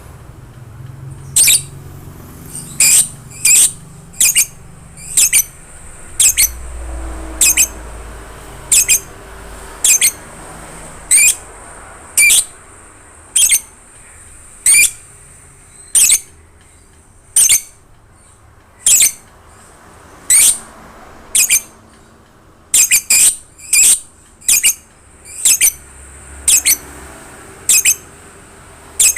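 Lovebird giving short, sharp, shrill calls, one roughly every second, repeated over and over.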